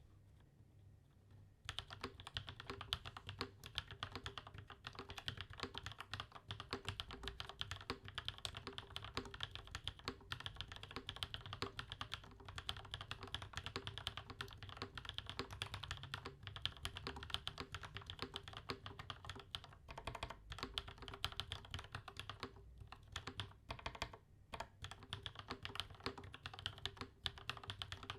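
Steady, fast typing on a mechanical keyboard with lubed Durock POM linear switches and GMK keycaps. The typing starts about two seconds in and runs on with a few short pauses.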